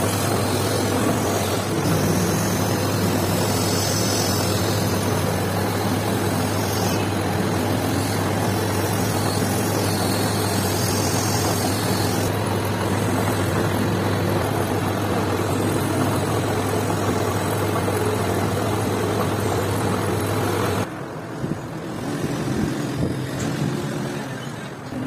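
Metal lathe running steadily with its motor hum, while emery cloth is held against the spinning metal workpiece to polish it, a scraping hiss. The lathe cuts out near the end.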